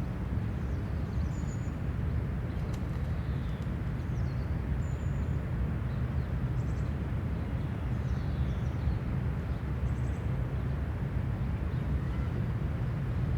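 Park ambience: a steady low rumble of distant traffic, with small birds giving short high chirps and trills every second or two.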